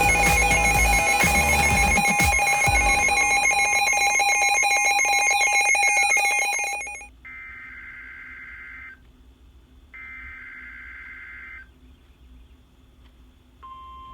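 A loud electronic sound of several steady tones cuts off suddenly about seven seconds in. It is followed by two short warbling data bursts of the NOAA Weather Radio SAME alert header, about a second apart. Near the end the steady 1050 Hz warning alarm tone starts.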